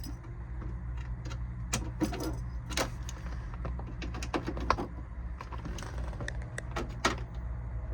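Irregular clicks and small metallic rattles of a hand tool snugging up the screws that hold the dashboard cover, over a steady low hum.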